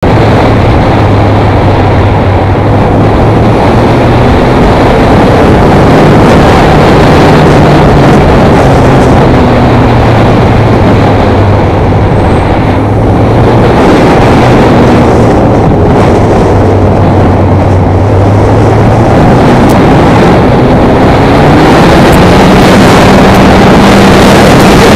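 Motorcycle engine running on the road, its pitch stepping up and down with throttle through the corners and climbing near the end as it accelerates, under heavy wind noise on the microphone.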